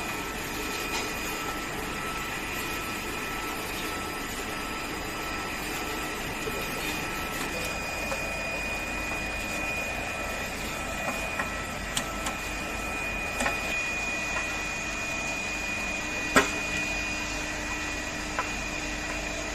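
Steady mechanical hum with a few fixed tones, broken by a few sharp clicks of metal parts and screws being handled during disassembly of the machine.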